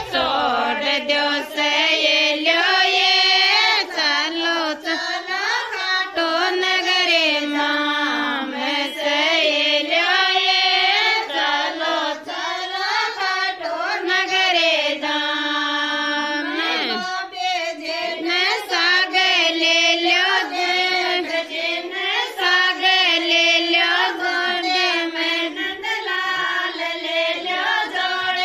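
A woman singing a Rajasthani folk devotional song, a single melodic line with long held notes that waver in ornaments.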